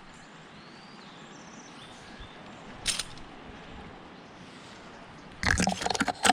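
Outdoor background with faint bird chirps, a single sharp click about three seconds in, and a loud run of close crackling knocks near the end.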